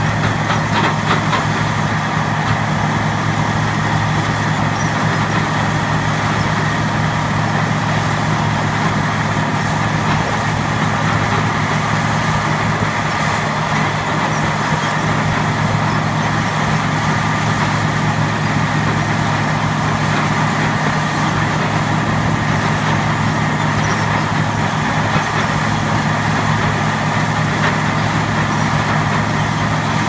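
Large engine running steadily at constant speed, an even mechanical hum with no break or change in level.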